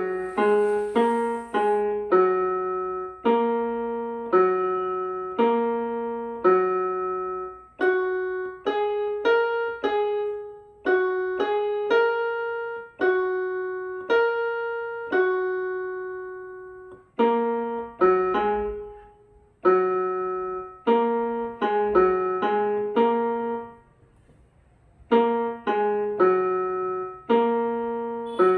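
Electronic keyboard playing a simple melody on its handbell voice. Each note is struck and rings while it fades, with short pauses between phrases.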